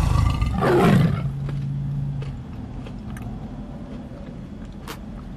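A woman's closed-mouth 'mmm' of enjoyment while chewing a mouthful of food: a hum that rises and falls, then is held steady for about a second and stops. After that come quieter eating sounds with a few small clicks, and one sharp click near the end.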